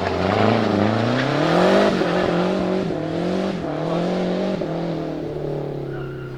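Turbocharged four-cylinder engine of a 1974 Fiat 124 Spider Abarth revving hard while drifting: the pitch climbs for about two seconds, then drops and rises again in several shorter pulls as the throttle comes on and off, falling away near the end.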